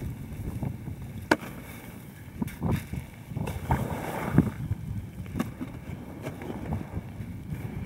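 A packraft paddle digging and knocking against brash ice, with irregular sharp knocks and crunches as the raft is worked through the floes, over a low rumble of wind on the microphone.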